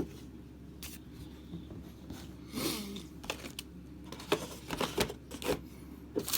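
Board game cards and box parts being handled: scattered light clicks and taps, with a brief soft rustle about two and a half seconds in.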